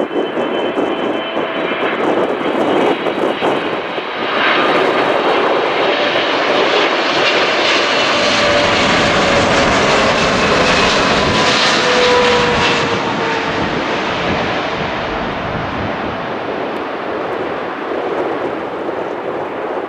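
Boeing 777 twin-jet on final approach with gear down, passing low overhead: its engine rumble and whine build about four seconds in, peak midway with a falling whine as it goes past, then slowly fade.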